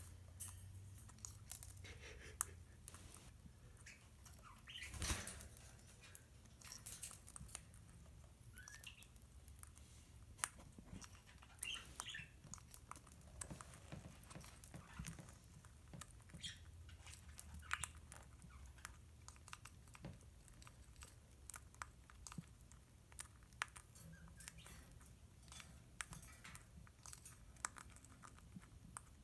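Senegal parrot cracking and chewing seeds: faint, irregular clicks and crunches from its beak, a few of them louder than the rest.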